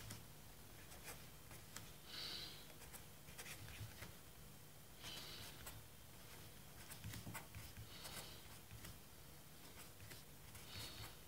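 Pen writing on paper: faint scratching strokes in short runs a few seconds apart, with light ticks of the tip between them.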